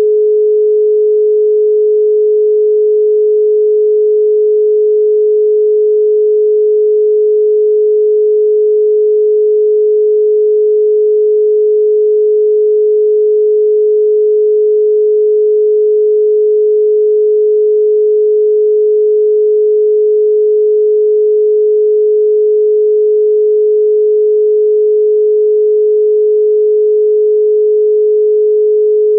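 Russian telephone dial tone: one continuous, unbroken 425 Hz tone, the exchange's signal that it is ready to receive a dialled number.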